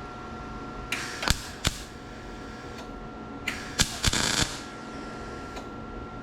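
MIG welder laying short tack welds on thin automotive sheet metal: a few brief crackling bursts about a second in and again around four seconds in, over a faint steady tone.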